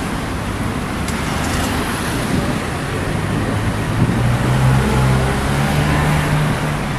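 Busy city street traffic: a steady mix of car engines and road noise. From about four seconds in, a nearby engine's low hum comes up and gets louder.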